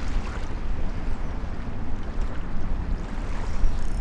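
Strong, gusty wind of about 20 mph rumbling on the microphone, over choppy, whitecapped water.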